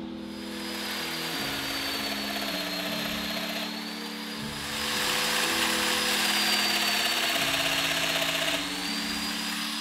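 Festool Domino joiner running with a steady high motor whine, growing louder and noisier for about four seconds midway as its cutter plunges into the oak board to cut a mortise.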